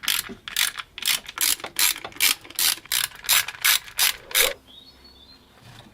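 Hand ratchet wrench clicking as it is worked back and forth, a steady run of about two to three strokes a second that stops about four and a half seconds in.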